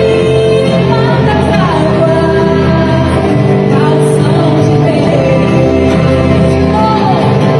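A band playing loud music with a singer's voice over it.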